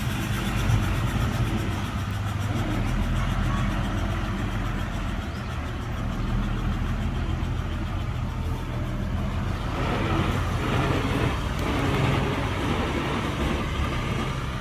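Heavy construction-vehicle diesel engine running steadily with a low drone, growing a little louder and rougher from about ten seconds in.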